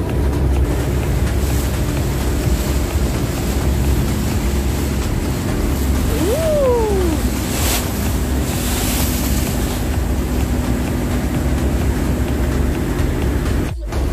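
Tour boat's engine running steadily under way, with the wake splashing along the hull and wind buffeting the microphone. About six seconds in, a short call rises and then falls in pitch.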